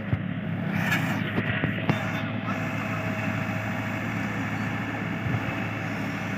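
Heavy diesel engine running steadily at a low, even speed, with a few sharp knocks in the first two seconds.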